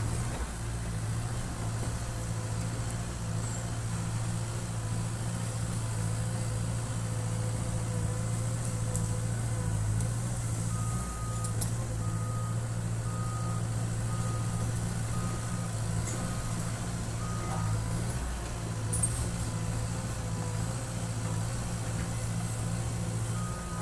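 Caterpillar crawler dozer's diesel engine running steadily as it works brush. Midway its backup alarm sounds a steady series of short beeps for several seconds, and one more beep comes near the end as it reverses.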